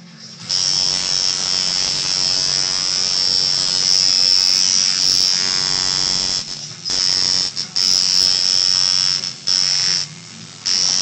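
Coil tattoo machine buzzing steadily as its needle works into the skin. It switches on about half a second in, then stops and starts again several times in the second half.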